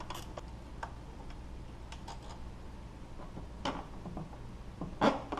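Scattered light clicks and taps of hand tools against metal and plastic parts in an engine bay, irregular rather than a steady rhythm. Two sharper clicks come near the end.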